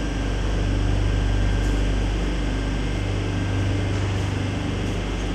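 Metro train standing at a station platform with its doors open, its air-conditioning and on-board equipment giving a steady hum with a low drone and faint high whines.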